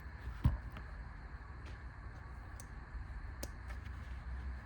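Small metal keychain multi-tools being handled: a soft knock about half a second in, then a few faint clicks, over a low steady hum.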